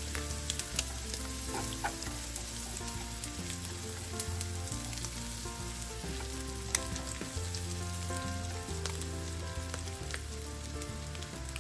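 Pieces of salted fish sizzling as they fry in a little oil in a pan, being browned, with occasional light clicks of a spatula pushing them around.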